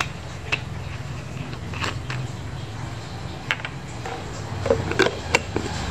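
Spice bottles and jars clicking and knocking as they are handled and set down on a countertop, a few sharp clicks with a cluster near the end, over a steady low hum.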